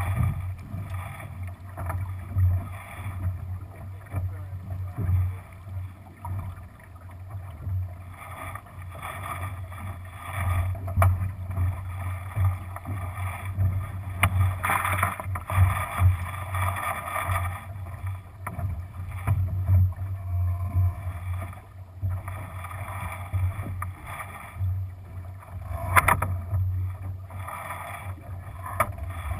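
Lightning sailboat sailing upwind, water rushing and washing along the hull, with wind buffeting the deck-mounted microphone in a steady low rumble. A few sharp knocks come through, the loudest near the end.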